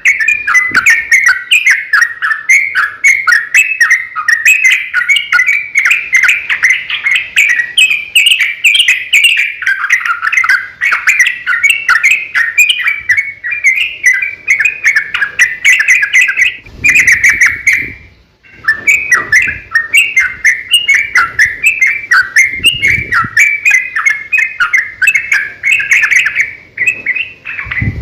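Yellow-vented bulbul singing in a long, rapid, continuous run of bubbly chattering notes, the full 'gacor' song used as a lure to get other bulbuls to answer, with one short pause about 18 seconds in.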